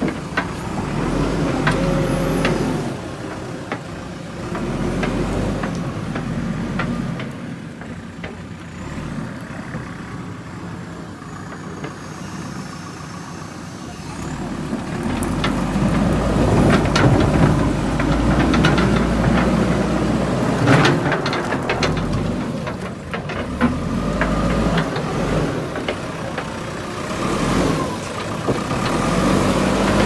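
Diesel engine of a JCB 3DX backhoe loader running and working, its sound rising and falling as the machine moves and is louder in the second half. A few sharp knocks sound over it.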